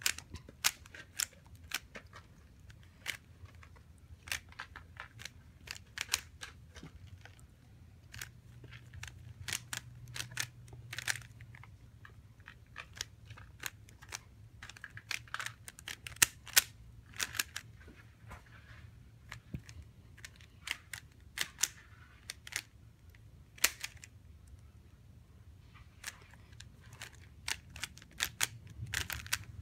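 A 3x3x3 Rubik's Cube being turned by hand during a solve: irregular plastic clicks and clacks as the layers snap round, sometimes singly and sometimes in quick runs, with short pauses between.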